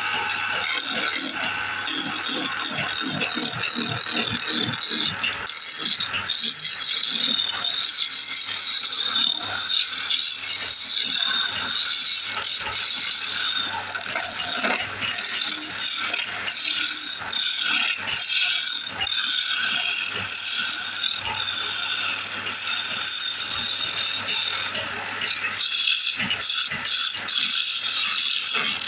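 A wood lathe spinning a wooden blank while a hand-held chisel cuts it: a continuous scraping chatter of the tool on the turning wood over a steady low hum from the machine.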